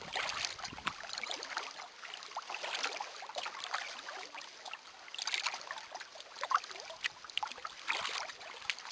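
Water lapping and trickling against a small boat's hull, an irregular patter of small splashes.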